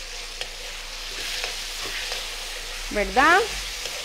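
Diced raw chicken sizzling steadily in hot oil in a wok as it is seared, with a metal spoon scraping and stirring it now and then.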